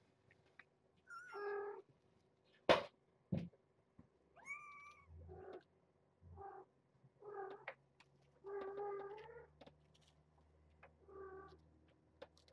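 Young kittens, about five weeks old, meowing again and again, about seven calls, one of them long. A sharp knock about three seconds in, the loudest sound, with a softer one just after.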